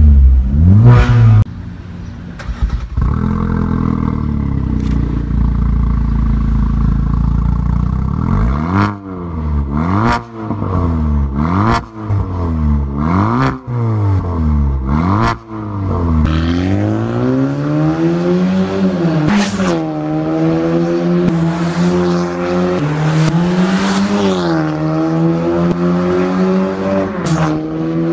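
Ford Focus 1.5 EcoBoost turbocharged engine through an RES valved sport exhaust with the valve open. It revs twice and settles to a steady idle, then gives five quick throttle blips. After that the pitch climbs and drops several times as the car drives off, with a few sharp cracks along the way.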